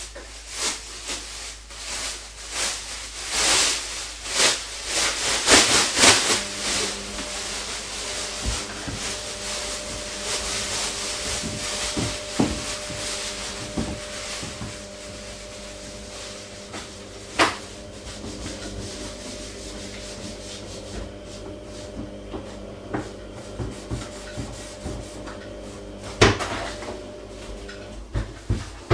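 Plastic bin bag rustling and crinkling as it is shaken open and worked into a kitchen bin, busiest in the first several seconds, then quieter handling with two sharp knocks later on. A faint steady hum runs underneath.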